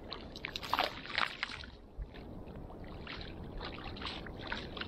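A cast net landing in shallow water, a cluster of splashes between about half a second and a second and a half in, followed by small trickles and splashes of water.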